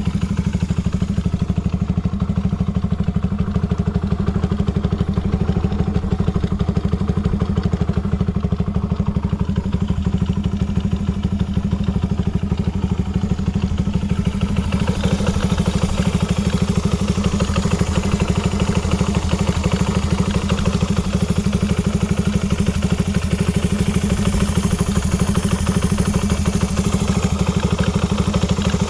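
Honda Ape 50 single-cylinder four-stroke, bored up with a Takegawa kit and breathing through a short exhaust pipe, idling steadily with an even exhaust beat. It runs without any abnormal noise.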